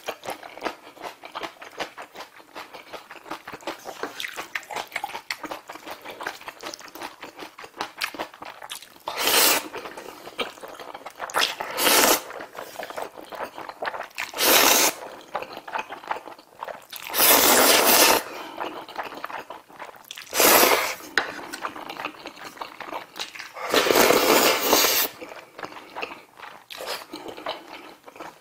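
Close-miked eating: steady wet chewing and lip smacking of black bean sauce noodles, broken six times by loud slurps of the noodles. The longest slurps come about two-thirds of the way in and near the end.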